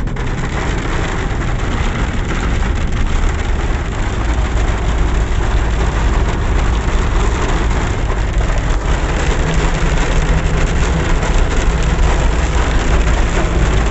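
Heavy rain and hail drumming on a car's roof and windscreen, heard from inside the cabin over the steady low rumble of the moving car.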